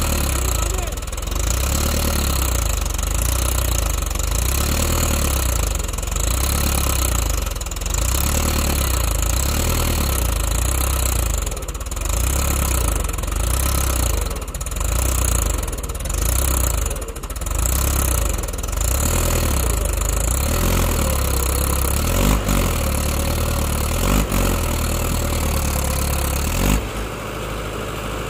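Mahindra 575 DI tractor's diesel engine running hard under load while towing a stuck tractor, its note dipping and recovering every couple of seconds, then easing off near the end.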